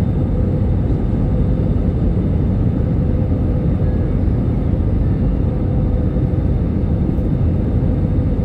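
Jet airliner cabin noise heard from a window seat: the engines and rushing air make a steady low rumble, with a faint steady hum on top.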